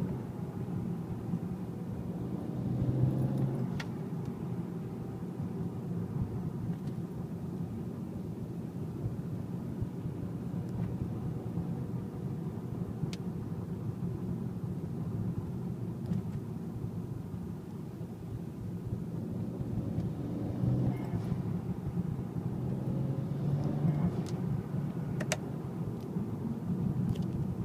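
BMW 335i's turbocharged straight-six running while driving, its note rising and falling somewhat later on, with a few brief sharp sounds over the top. The car has an aftermarket blow-off valve, and the owner hears an odd whoosh on lift-off that he takes for a valve dumping boost pressure into the throttle body.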